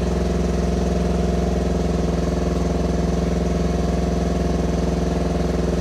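Mitsubishi 4D56 four-cylinder diesel engine idling steadily at an even pitch, with its crank and injection-pump timing marks aligned.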